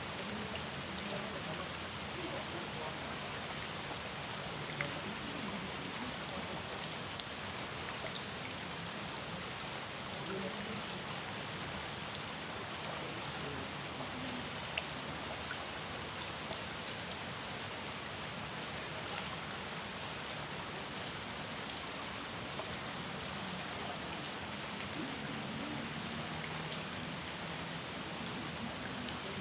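Steady rain falling on a pond: an even hiss with a few sharp single ticks now and then.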